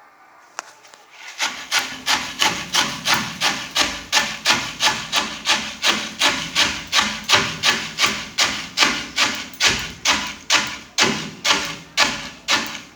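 Maize being pounded in an okhli, a traditional village mortar: rhythmic strokes with a gritty, crunching edge, a little over two a second, starting about a second and a half in.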